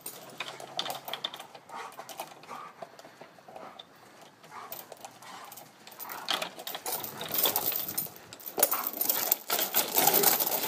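Irregular clicking and rattling of a playground swing's chains as a Doberman bites and yanks the swing seat, louder in the second half.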